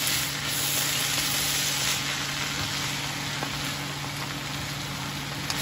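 Shredded bamboo shoots sizzling steadily in a frying pan as they are stir-fried with a wooden spatula, over a faint steady low hum.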